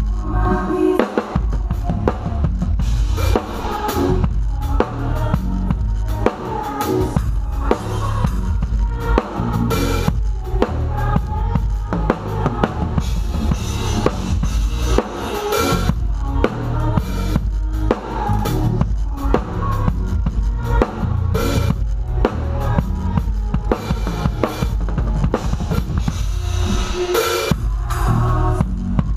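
Drum kit played live in a steady groove, kick drum, snare and cymbals loud and close, over the band's bass and keys.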